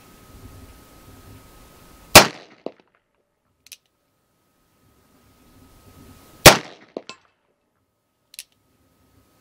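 Two shots from a Cimarron 1860 Army Richards Type II conversion revolver in .45 Long Colt, about four seconds apart. Each report is followed by a short echo, and a faint click comes a second or so after each shot.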